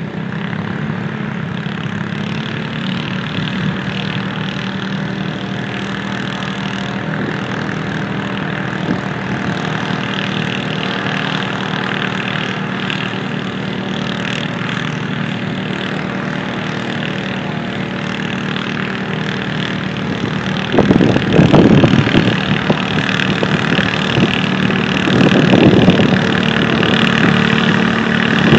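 Garden tractor engines idling steadily, with two short louder revs partway through and again near the end.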